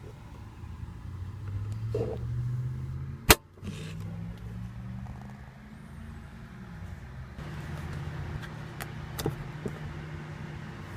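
A 2014 Mercedes-Benz SL550 idling, a low steady hum heard from inside the cabin, its pitch shifting slightly a few times. There is one sharp click about three seconds in, the loudest sound, and a few lighter clicks.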